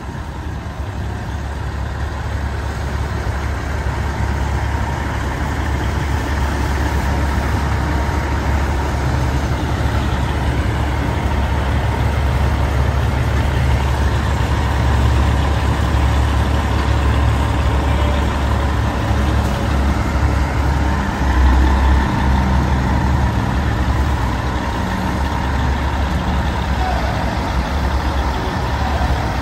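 Peterbilt 389's diesel engine running at a low, steady idle as the truck creeps forward, with a deep rumble that swells briefly about two-thirds of the way through.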